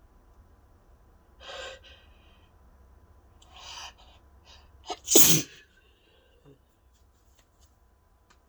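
A person sneezing once, loudly and sharply, about five seconds in, after two shorter breath sounds. The sneeze is induced by tickling the nose with a grass stalk.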